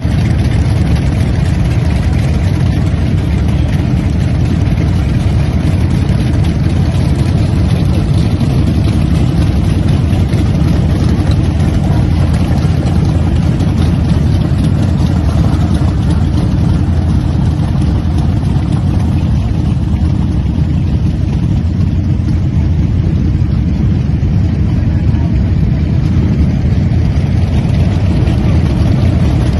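Several Harley-Davidson V-twin motorcycles idling together, a steady low engine sound.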